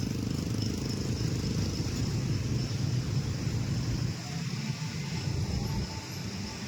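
Steady low rumble of a road vehicle on the move, with road noise, easing slightly about four seconds in.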